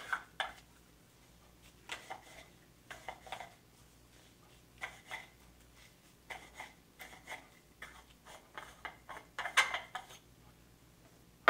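Tablet being crushed in a handheld pill crusher: irregular clicks, scrapes and grinding in short spurts, the loudest a little before the end.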